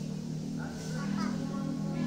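Soft background music with a low, steady melody.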